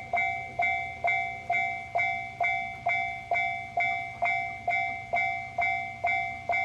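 Japanese railroad crossing warning signal ringing its repeated 'kan-kan' strikes, about two a second, each one ringing and fading before the next.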